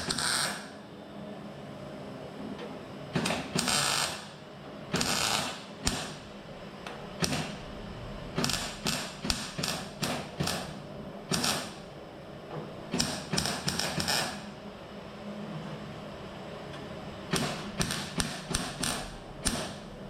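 Irregular runs of sharp clicks and knocks from hand work on metal, some coming quickly one after another and others singly, with pauses between the groups.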